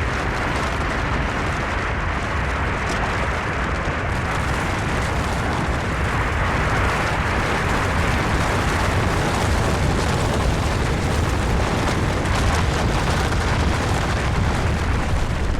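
Avalanche sound effect: a continuous deep rumble with a dense rushing noise of sliding snow, slowly growing louder.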